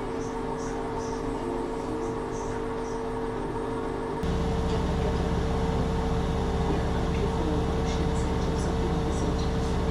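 Washing machine running with a steady low mechanical hum, which jumps suddenly louder and deeper about four seconds in.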